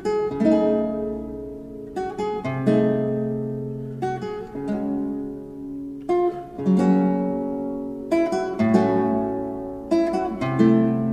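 Strummed guitar chords, a new chord every second or two, each ringing and fading before the next.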